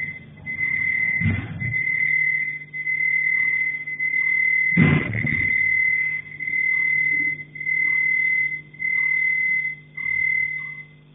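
A high-pitched beep, about a second long, repeating steadily about every 1.3 seconds. Two dull knocks come through it, about a second in and about five seconds in.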